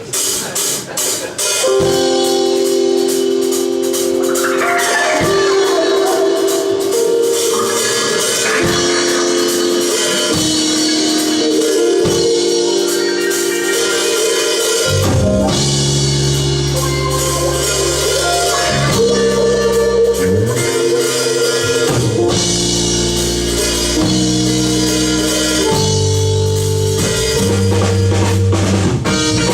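Live band playing an instrumental jazz-fusion cover: drum kit with cymbal hits under sustained held chords. A bass line comes in about halfway through.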